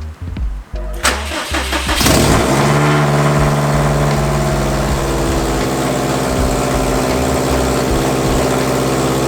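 Subaru WRX STI's turbocharged flat-four starting up through catless downpipes. It catches about two seconds in with a brief flare, then settles into a loud, steady idle.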